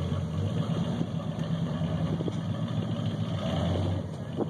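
A trail-modified rock crawler's engine running at low, steady revs as it climbs a rock section, easing off about four seconds in.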